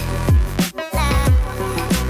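Background music with a beat and deep bass notes that slide down in pitch, dropping out briefly a little before the midpoint.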